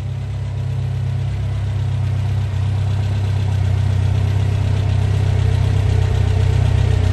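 Newly built 2332cc air-cooled VW flat-four with dual 44 Weber carburettors and a stainless exhaust, running on a run stand with the throttle worked by hand; the engine sound builds steadily louder. The Weber main-circuit fault behind its high-rpm stumble has been repaired, and it runs clean.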